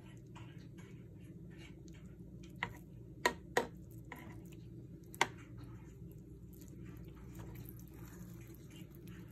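Kitchen tongs pulling apart fork-tender pot roast in its broth: soft wet squishing, with sharp clicks of the tongs, three close together about three seconds in and one more about five seconds in.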